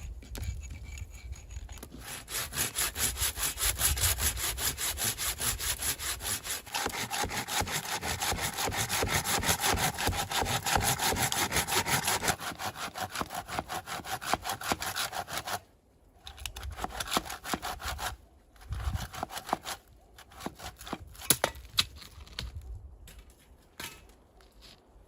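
Hand saw cutting through wood with steady, rapid back-and-forth strokes that stop suddenly about fifteen seconds in. Scattered knocks and rustles of handling wood follow.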